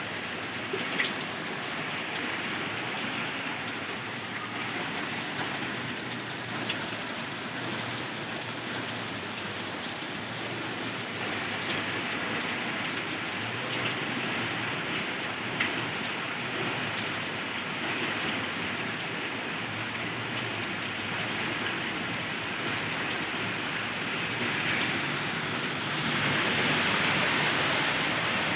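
Heavy rain pouring steadily, with a few sharp taps of drops landing close by; the downpour grows louder near the end.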